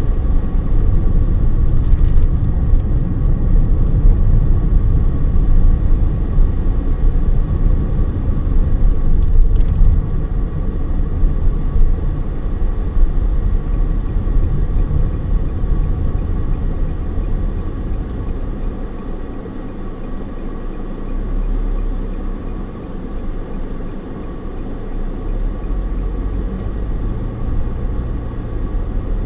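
Car driving, heard from inside the cabin: a steady low rumble of tyre, road and engine noise. It gets quieter about ten seconds in and again past the middle.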